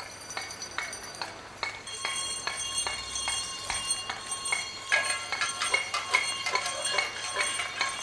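Pots and pans being banged, with handclaps: irregular metallic clangs and clinks with ringing tones, starting faintly and building up over the first two seconds into a busy, overlapping din.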